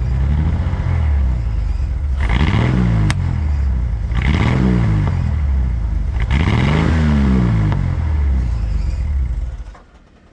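Ford 300 inline-six in a 1987 F-150 running just after a tune-up with new spark plugs and wires, revved three times, each rev rising and falling in pitch over about a second. The engine sound cuts off near the end.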